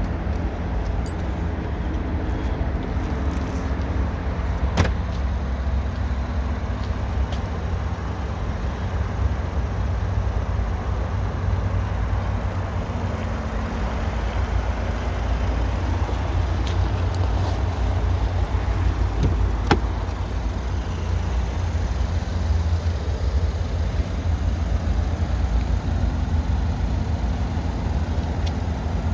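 Mercedes-AMG C43's twin-turbo V6 idling steadily with a low, even rumble, and a couple of sharp clicks about five and twenty seconds in.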